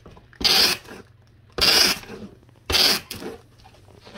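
Packing tape pulled off the roll in three short, quick rips about a second apart, with faint rubbing of cardboard between.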